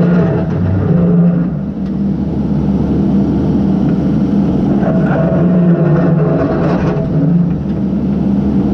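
Case backhoe's diesel engine running, its pitch rising and falling a few times as the engine speed changes while the machine works.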